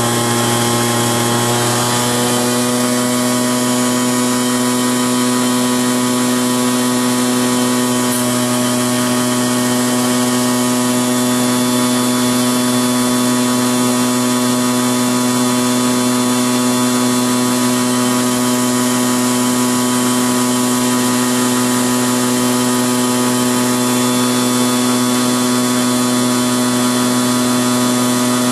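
Brushed DC motor running steadily at high speed, about 7,100–7,400 rpm, on a battery bank: a steady electric whine over a hum. Its tone fills out slightly about two seconds in, then holds even.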